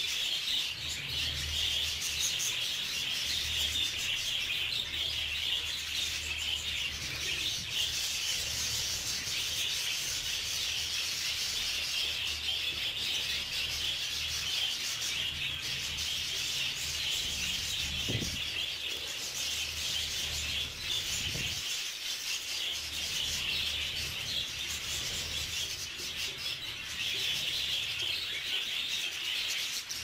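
A flock of budgerigars chattering and warbling without a break, a dense, scratchy twittering, with a low steady hum underneath.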